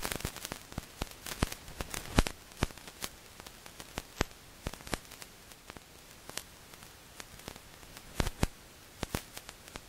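Faint static hiss with sparse, irregular sharp clicks and crackles, a few louder ones scattered through.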